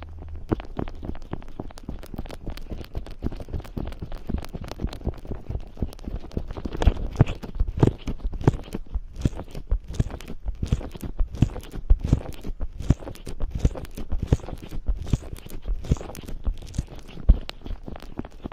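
Fingers massaging cream and oil behind an ear on an ASMR microphone. Close, slick rubbing with a dense run of crackling squishes and small taps, several a second.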